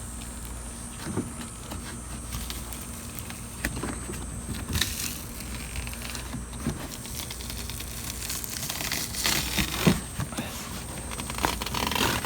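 Glued-on weather stripping being peeled off the inner door of a car, a run of irregular small clicks and rustles as the adhesive lets go, with a few sharper knocks.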